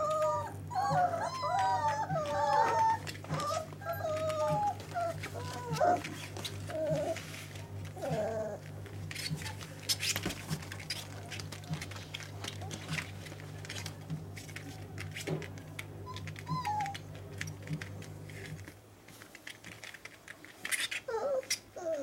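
Dogo Argentino puppies whining as they play, with many high wavering cries over the first eight seconds, then a stretch of scattered clicks and scratches and a couple more short whines near the end. A steady low hum runs underneath and stops a few seconds before the end.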